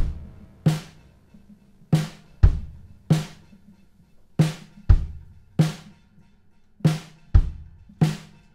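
A clear acrylic drum kit played in a slow, sparse, steady groove. Deep bass-drum thuds come about every two and a half seconds, with snare hits between them, one stroke roughly every 0.6 s, each ringing out briefly.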